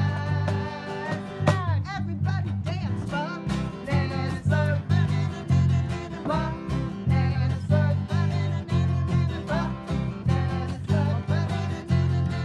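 Live acoustic band playing a bouncy song: strummed acoustic guitar over an electric bass line and a cajon beat, with singing voices.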